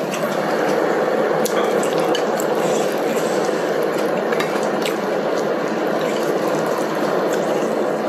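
Broth boiling hard in an electric hotpot, a steady dense bubbling, with a few clicks of chopsticks against a glass dish.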